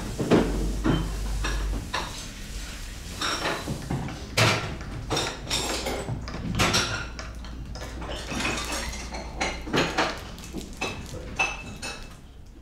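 Café crockery and cutlery clinking and clattering at irregular intervals, a few clinks ringing briefly, the sound fading away near the end.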